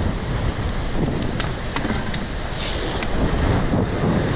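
Wind buffeting the microphone over ocean water, with a few sharp clicks about one to two seconds in.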